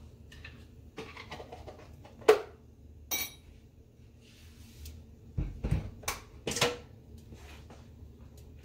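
Scattered kitchen clatter of kitchenware being handled: a few sharp knocks and clinks, the loudest a little over two seconds in, then several more close together between about five and seven seconds.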